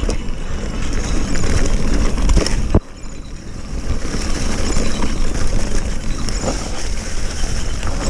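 Mountain bike riding fast down a dirt forest trail: wind rushing over the microphone, tyres rolling over dirt and dry leaves, and the bike rattling over bumps. A sharp knock comes near three seconds in, after which it goes quieter for a moment.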